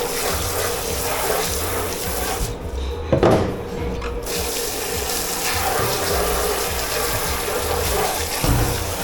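Water running hard into a dish-pit sink, cutting out for a moment between about two and a half and four seconds in, with a loud knock of a pot or dish in that gap; a steady hum of kitchen machinery underneath.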